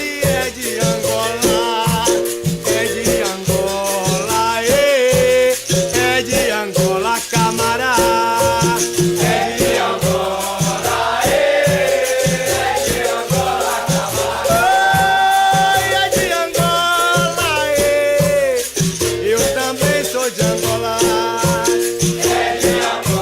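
Capoeira music: a shaken rattle and a steady beat of low drum strikes, with voices singing over them.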